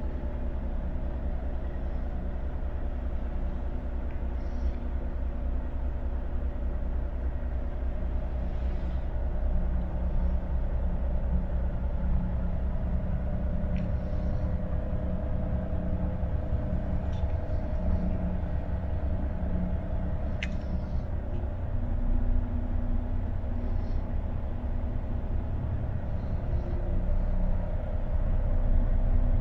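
Renault Magnum 520's turbo-diesel engine idling steadily, heard from inside the cab as a low rumble, with a few faint clicks.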